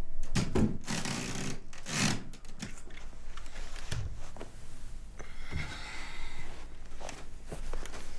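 Handling noise: a series of knocks and clicks from objects being picked up and set down, then scattered knocks and a stretch of rubbing and rustling.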